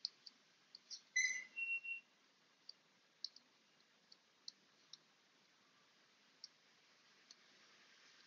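Faint, scattered clicks of a stylus tapping on a tablet screen as digits are written, about a dozen ticks at irregular intervals, with a short high squeak a little over a second in.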